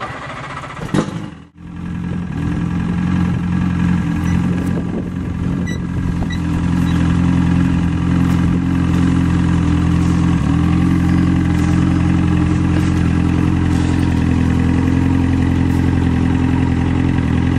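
An engine idling steadily, with an even pitch, from about two seconds in; a single knock comes just before it.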